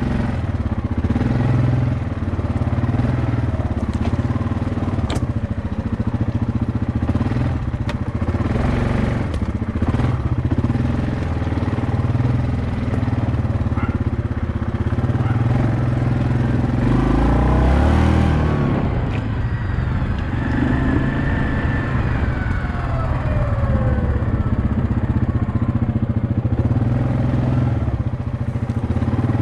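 Yamaha Kodiak 700 ATV's single-cylinder four-stroke engine running steadily under way over rough ground, with knocks and rattles from the bumps. Just past the middle it revs up briefly, then its pitch falls away for several seconds as it slows.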